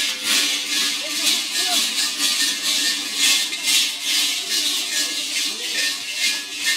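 Krampus and Perchten costume bells clanging and jangling in a steady rhythm, about two strokes a second, shaken by the stomping costumed runners.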